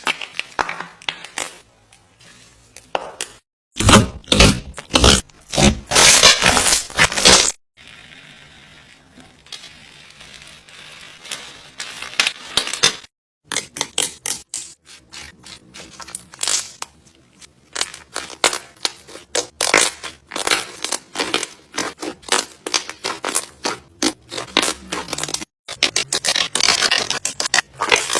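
Slime being squeezed and pressed by hand, giving dense runs of crackling, popping clicks. The sound stops suddenly several times where short clips are cut together.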